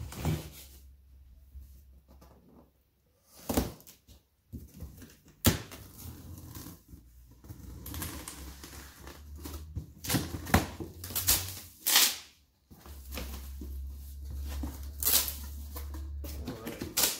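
A small knife slitting the packing tape along a cardboard box's seam, then the cardboard flaps being pulled open, heard as irregular sharp scrapes, crackles and knocks of tape and cardboard with low handling rumble between them.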